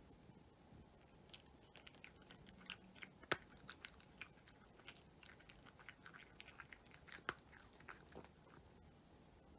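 Cat chewing dry kibble: a quiet run of small crisp crunches that starts about a second in and dies away near the end, with two sharper, louder cracks, one about a third of the way in and one about three-quarters of the way in.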